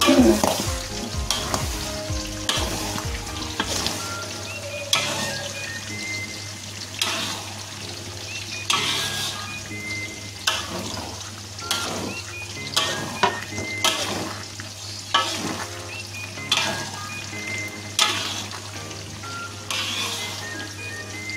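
Spatula stirring and scraping thick clam-and-fern rendang in a large metal wok, the coconut-milk chilli sauce sizzling as it cooks down, with a stroke about every one to two seconds. The sauce is kept moving so the drying paste doesn't stick to the pan.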